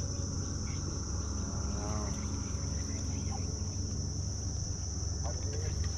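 Steady high-pitched insect chorus, one unbroken buzz, over a low steady rumble.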